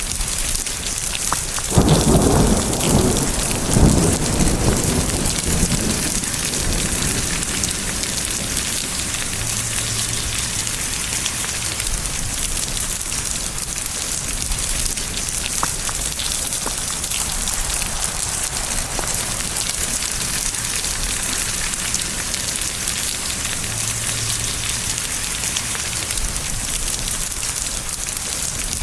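Steady heavy rain hissing, with a clap of thunder about two seconds in that rumbles on for about four seconds, and fainter distant rumbles later.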